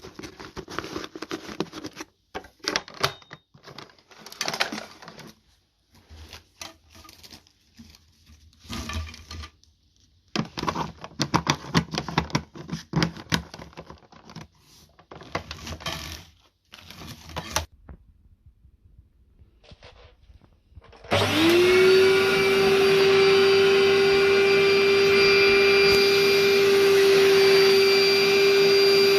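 Irregular clicks, knocks and rustling of handling, then near the end the Royal Dirt Devil Can Vac's 1100-watt motor switches on, rises to speed within about a second and runs loud and steady with a high whine.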